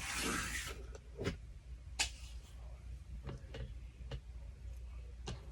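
Small metal clicks and taps from jewelry wire-looping pliers and wire being handled, after a brief rustle at the start; about half a dozen sharp ticks spread unevenly, the loudest about two seconds in.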